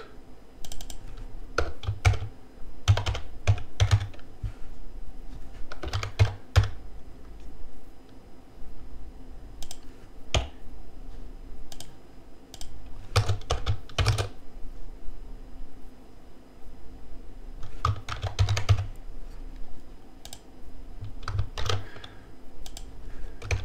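Typing on a computer keyboard: short bursts of keystrokes with pauses of a second or more between them.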